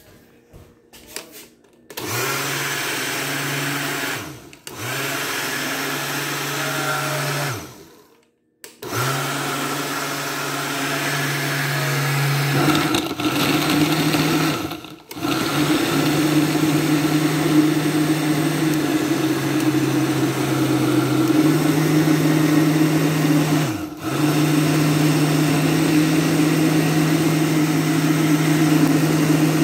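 Countertop blender blending a fruit smoothie. The motor starts about two seconds in and stops and restarts in short bursts several times, then runs steadily, its pitch stepping up and down as it goes.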